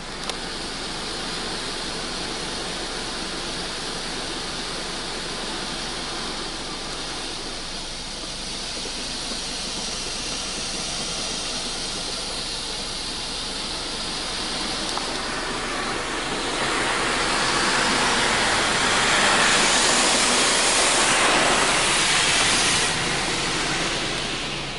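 Water spray from a Belanger Saber SL1 automatic car wash hitting the car, heard from inside the cabin: a steady hiss that grows louder about two-thirds of the way through and falls off just before the end.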